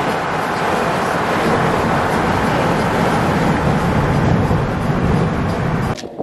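Steady road and wind noise of a moving camper van, cutting off suddenly near the end.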